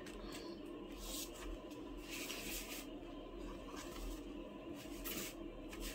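Faint rustling and rubbing of cardstock being handled, in a few soft swishes.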